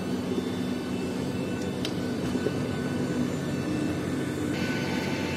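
Steady airport aircraft noise: a continuous drone with several held low hum tones, beside a parked airliner. There is a single short click about two seconds in, and a brighter hiss joins near the end.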